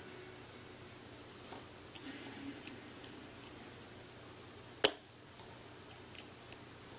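Small metallic clicks and ticks of lock picks working the pins of a challenge lock, with one sharp, much louder click a little before five seconds in.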